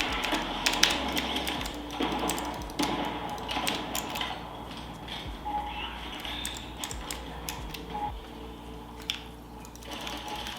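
Typing on a Tsunami MK-61 60% mechanical keyboard with Outemu switches: a quick, irregular run of keystroke clicks and clacks.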